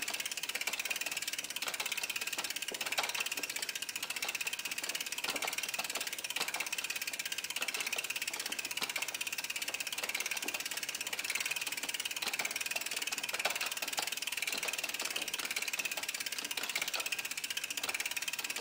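Bicycle rear wheel's freewheel ratchet ticking fast and steadily as the wheel is turned by hand, its pawls clicking over the ratchet teeth.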